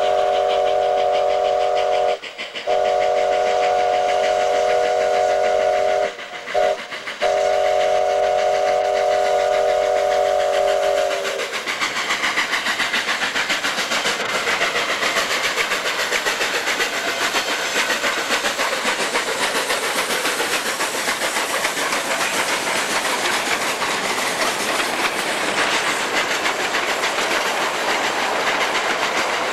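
Steam locomotive whistle sounding a multi-note chord in the grade-crossing pattern of long, long, short, long, ending about eleven seconds in. Then the steady rush of the two narrow-gauge steam locomotives working hard past with the train, exhaust and wheels on rail.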